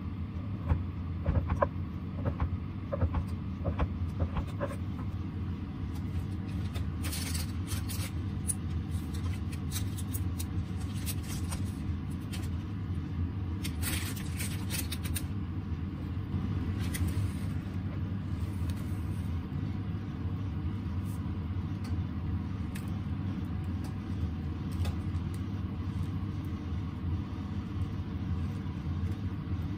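Kitchen prep sounds over a steady low hum: a few short knife ticks against a wooden cutting board while slicing tomatoes, then crinkling of baking parchment as the tomato slices are laid out in a dish, loudest in the middle stretch.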